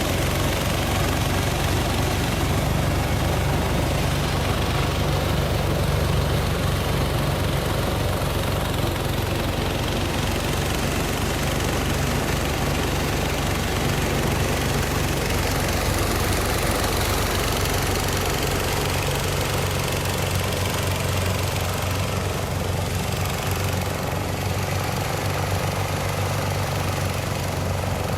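Engine-driven rice threshing machine running steadily with a low, even hum while rice stalks are fed into it by hand, separating the grain and throwing the stalks back out into the field.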